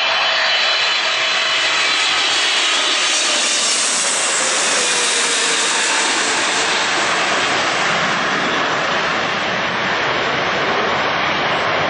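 Twin jet engines of a Boeing 777 airliner on final approach passing low overhead, loud and steady. A whine falls in pitch as it goes over, the high rush is strongest about four to five seconds in, and a deeper rumble builds as it moves away.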